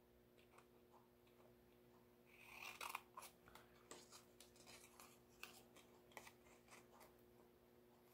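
Small craft scissors snipping through patterned paper, cutting a word strip out of a sentiment sheet: faint scattered snips, with a louder run of cuts about two and a half to three seconds in.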